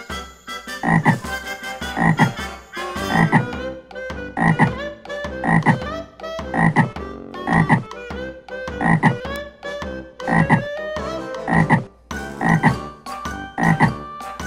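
Frog croaking over and over in a steady rhythm, about one croak a second.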